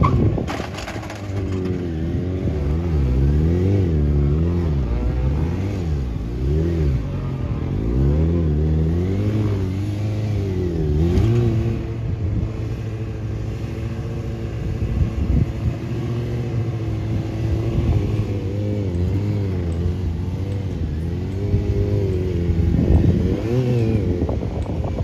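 Sport motorcycle engine revving up and down as the rider works the throttle through stunt riding. The pitch swings about once a second at first, settles into a steadier drone, then rises again near the end as the bike is lifted into a wheelie.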